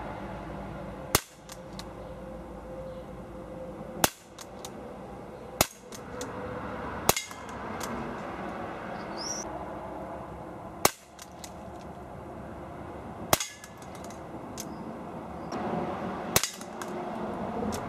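Beretta PX4 Storm CO2 air pistol firing .177 pellets: seven sharp shots, one to four seconds apart, some followed at once by a few lighter ticks.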